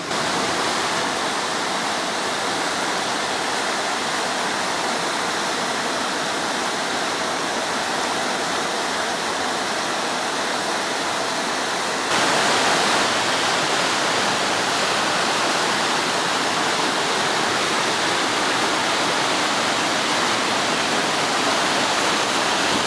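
Waterfall: a steady rush of falling water that suddenly gets louder about halfway through.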